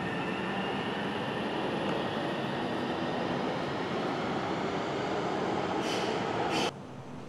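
Sound Transit Link light rail train moving through the station: a steady rush of wheel and motor noise with a faint rising whine, which cuts off abruptly near the end.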